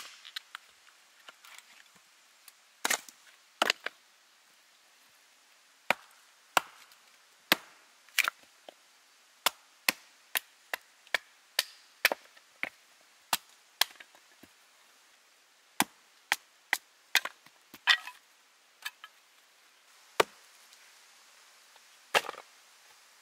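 Knife being batoned down through a stick of firewood to split kindling: a round wooden baton strikes the knife's spine again and again, giving sharp wooden knocks one to two a second with short pauses between runs.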